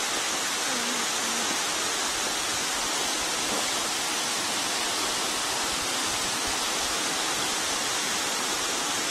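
Waterfall: a steady rushing hiss of falling water.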